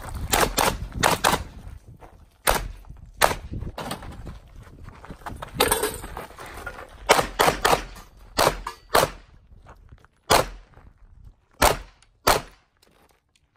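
Semi-automatic pistol firing a dozen or more shots in quick pairs and short strings, with pauses between the strings.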